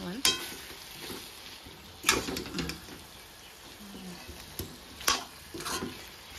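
A steel spoon stirring and scraping a thick potato curry in a steel wok, knocking against the pan several times, over a faint frying sizzle.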